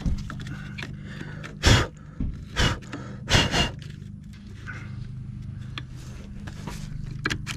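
Three short, loud rustling bursts close to the microphone, about a second apart, over a steady low hum, as a gloved hand works a plastic wiring connector onto an ABS control module.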